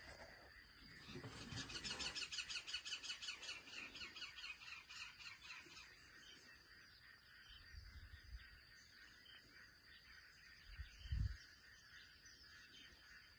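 Wild birds calling in the bush, with a fast run of repeated chirps over the first few seconds over a steady high insect drone. A short low thump comes near the end.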